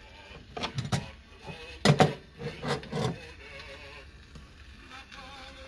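Toy PPSh-41 submachine gun being handled: a few sharp knocks and clatter about a second in, then a louder bunch of clattering knocks a second later.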